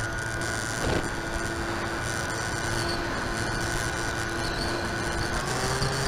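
Park 480 brushless electric motor and three-blade propeller of a foam-board FPV plane running steadily in flight, heard from the onboard camera with wind rush over it. The pitch steps up slightly near the end.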